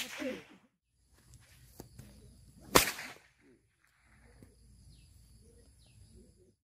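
A single sharp crack of a pecut, a long traditional whip, about three seconds in.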